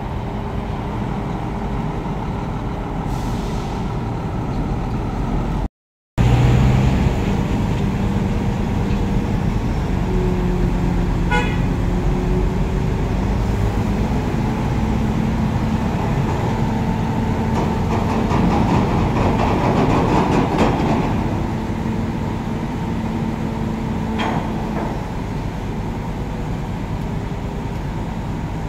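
Heavy diesel engines of trucks and a mobile crane running steadily, with a short break in the sound about six seconds in.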